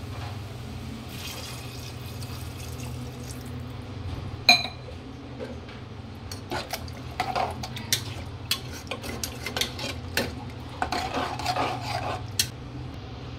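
A steel ladle clinking and scraping against an aluminium pressure-cooker pot as the curry is stirred. One sharp ringing clink comes about four and a half seconds in, then a run of quicker clinks and scrapes from about six seconds on, over a steady low hum.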